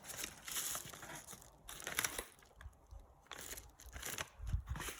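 Mail package wrapping being torn open by hand, crinkling and rustling in irregular bursts that thin out after the first couple of seconds, with a few soft low bumps near the end.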